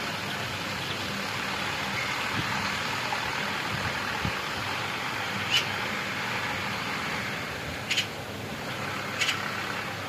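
Universal 640 tractor's diesel engine running steadily at a distance under ploughing load, with three short sharp clicks in the second half.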